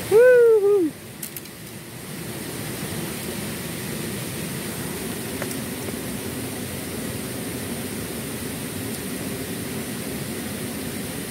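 Steady rush of flowing stream water. A man's short voiced exclamation rises and falls at the very start.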